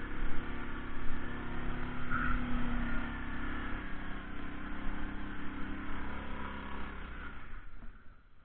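ATV engine running under throttle, fading away near the end.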